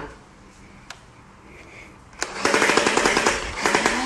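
Large motorised toy foam blaster firing full-auto: a fast, even rattle of shots that starts a little past halfway, breaks off briefly and starts again, after a couple of soft clicks.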